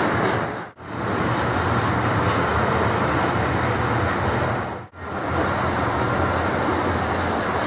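Model railway locomotives running on a layout: a steady whir of small electric motors and wheels rolling on track, cutting out briefly twice, just under a second in and about five seconds in.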